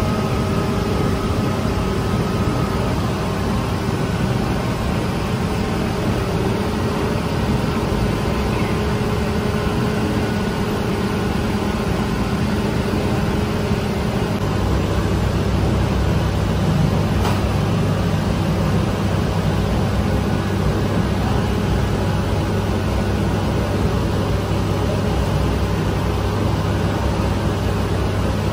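Large commercial dough mixer running steadily as its arm churns a bowl of bread dough. About halfway through, the sound changes to a lower, steady machine hum from the bakery equipment.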